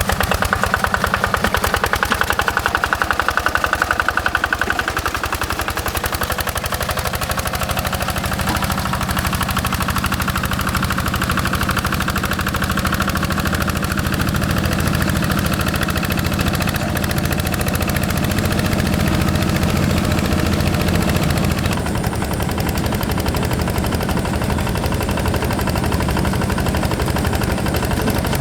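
Single-cylinder Yanmar diesel engine of a Quick G1000 hand tractor running steadily with a rapid chugging beat. Its sound turns deeper about six seconds in.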